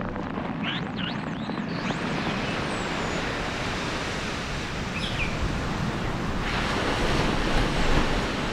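Bottlenose dolphin whistles, a few short rising and falling glides, over a steady rush of water. From about six seconds in, surf breaking on a reef shore takes over as a broader rush.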